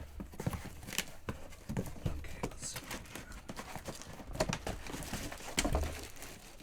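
Cardboard box and its packing being torn open and handled by hand: irregular tearing, crinkling and knocks.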